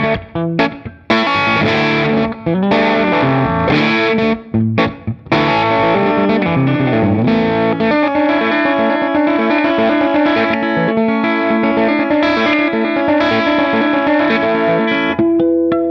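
Electric guitar played through a Retro-King 45 combo, a hand-wired JTM45 Bluesbreaker-style 2x12 valve amp with two Celestion Gold alnico speakers. It opens with short, choppy chords broken by brief stops in the first five seconds, then moves to held, ringing notes and chords.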